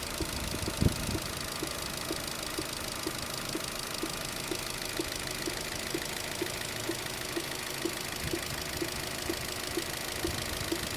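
Opel Z18XER 1.8-litre four-cylinder petrol engine idling with a steady, regular knock about twice a second, and one louder thump about a second in. The owner does not know what causes the knock.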